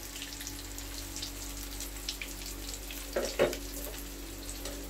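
Crumbed chicken schnitzel shallow-frying in hot oil in a pan: a steady sizzle with fine crackles. A couple of sharp knocks come about three seconds in as the tongs and pan are handled.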